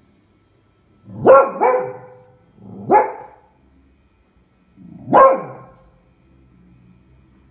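Beagle barking at a pram she sees outside the window. There are four sharp barks: a quick pair a little over a second in, one at about three seconds, and one at about five seconds, with pauses between.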